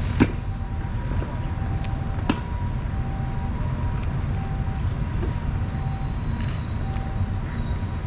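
A steady low rumble, with two cats crunching dry kibble close by: faint crunches and ticks, and two sharp clicks, one just after the start and one about two seconds in.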